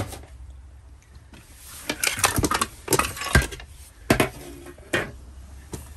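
Hard metal and glass items clinking and knocking together as a pair of classic motorcycle mirrors is lifted out of a box. There is a quick run of clinks, then a few single knocks.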